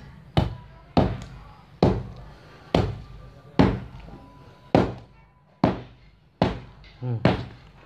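A metal-bladed hand tool chopping into a rotten, termite-eaten ulin (Bornean ironwood) log in the ground. There are about ten sudden blows, roughly one a second, with two in quick succession near the end. The decayed wood crumbles under them.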